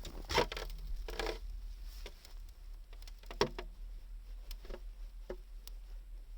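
Wood fire crackling: irregular snaps and pops, with two longer crackling bursts in the first second and a half and a sharp pop about three and a half seconds in.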